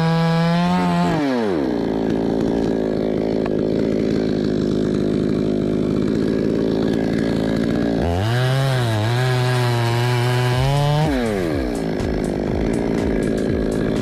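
Petrol chainsaw cutting through a coconut palm trunk. The engine runs at high revs, drops to a lower steady pitch after about a second and a half, revs up again about halfway through with a wavering pitch for some three seconds, then settles back lower.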